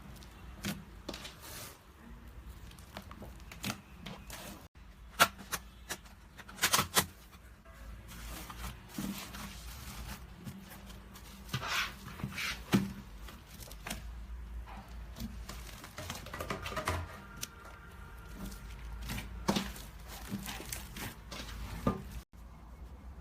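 Slime squeezed and pressed by hand, making irregular sticky clicks, crackles and pops. The sharpest pops come about five and seven seconds in.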